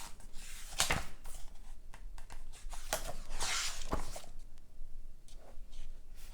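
Pages of a paperback book being turned and handled: a few soft knocks about one, three and four seconds in, with a papery rustle between the last two.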